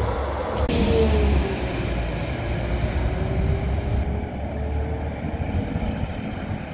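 Diesel multiple-unit train running: a low rumble with a thin whine that dips slightly in pitch and then holds steady.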